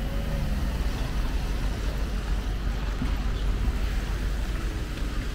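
City traffic on a rain-wet street: car tyres hissing on the wet pavement as vehicles pass, over a steady low rumble.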